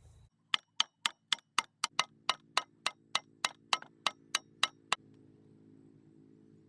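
Rapid, evenly spaced ticking like a clock, about four ticks a second, stopping about five seconds in. A faint steady low hum with several tones runs underneath from about two seconds in.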